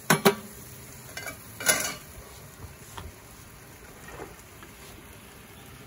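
Chicken fajitas sizzling in a hot carbon steel wok, a steady hiss. Two sharp metal clacks at the very start and another clatter just under two seconds in, from cooking utensils handled against the wok and table.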